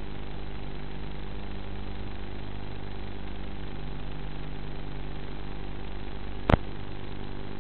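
Electric motor and pusher propeller of a TBS Caipirinha flying wing running at steady part throttle, a steady drone heard through the onboard FPV camera's microphone. One sharp click about six and a half seconds in.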